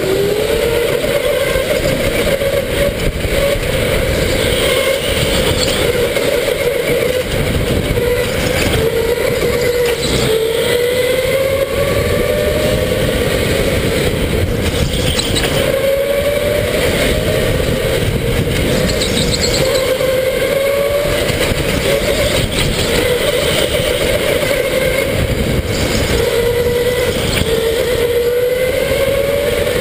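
Electric go-kart motor whining under the driver, its pitch climbing as the kart accelerates and dropping back into corners, several times over, above a constant rumble of tyres and wind noise.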